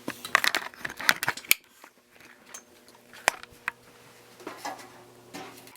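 Irregular sharp crackles and snaps from an electrical switch shorting out, over a faint steady mains hum. The crackling is densest in the first second and a half, with a few isolated snaps later.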